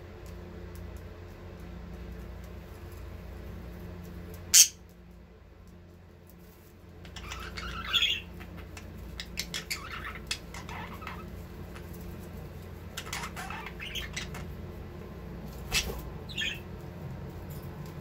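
Budgerigars chirping and chattering in short scratchy calls, in several clusters through the middle and latter part, while mating. A sharp click about four and a half seconds in is the loudest sound, with another near the end, over a steady low hum.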